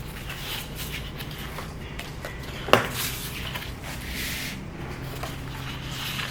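Handling of a vinyl LP's packaging: scattered light taps and short rustles of paper and card, with one sharp knock a little before halfway through, over a steady low hum.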